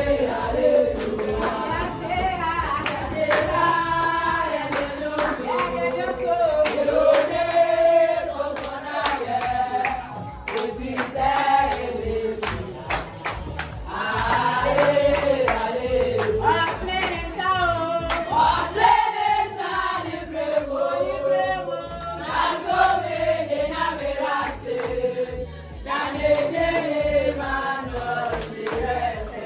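A group of women singing a song together in chorus, clapping their hands along with it.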